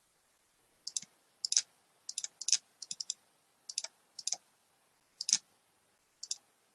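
Computer mouse clicking: about a dozen short, sharp clicks at irregular intervals, several in quick double-click pairs, as files are saved and opened.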